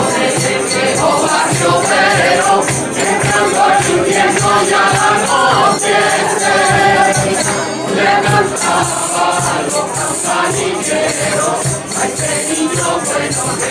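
Mixed group singing a Christmas villancico in chorus, accompanied by two Spanish guitars, a cajón, tambourines and hand clapping.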